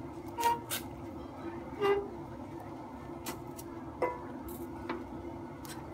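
A metal spoon stirs and mashes rice flour into boiled water in a stainless steel pot. The spoon knocks against the pot several times at uneven intervals, and some knocks leave a short metallic ring.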